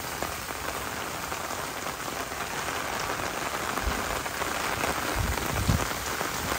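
Steady heavy rain falling and pattering on an umbrella held overhead, with a few brief low rumbles about four seconds in and again near the end.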